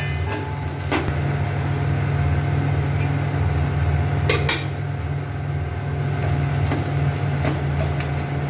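Steel spoon stirring semolina into sautéed onions and spices in a stainless-steel pot, with sharp clinks of spoon against the pot about a second in and about four and a half seconds in, over a steady low hum.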